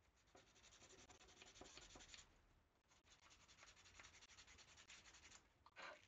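Faint, fine scratchy friction on a thin wooden model-kit stick worked by hand: two bouts of quick strokes about two seconds each, then one short scrape near the end.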